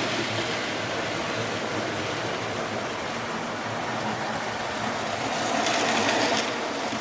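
Model railway train running along the track: the steady whirr of a small electric locomotive motor and the rattle of wheels on rail, growing louder for about a second near the end.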